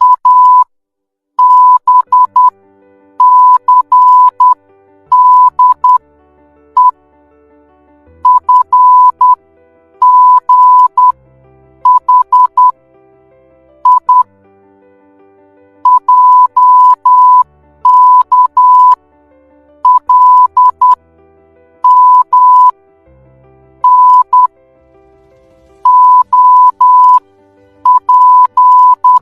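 Morse code sent as a steady tone of about 1 kHz, keyed on and off in short dots and longer dashes. The tone comes in groups of a few characters with short pauses between them.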